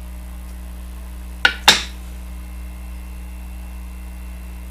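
Two sharp clinks of small hard objects about a quarter second apart, the second louder with a brief ring, over a steady low electrical hum.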